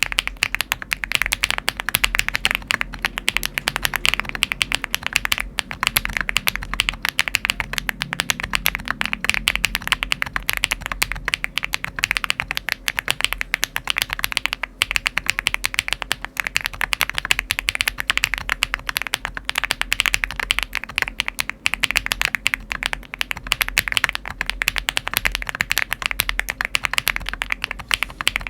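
Continuous fast typing on a Cupid 65 custom mechanical keyboard with HMX Hyacinth V2U switches and Frontier Magic Beads Light keycaps: a dense, even stream of key clacks that never pauses.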